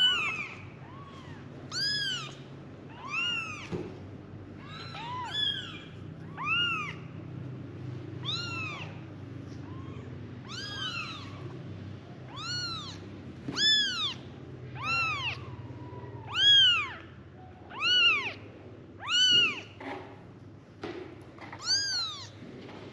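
Young kittens mewing for their mother: a steady run of short, high calls, each rising and falling in pitch, about one a second, with two voices sometimes overlapping.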